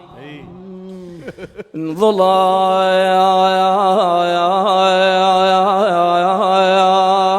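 A man singing an unaccompanied Husseini lament in Iraqi style. After a soft, low stretch he comes in about two seconds in with a long, loud held note, ornamented with quick melismatic turns.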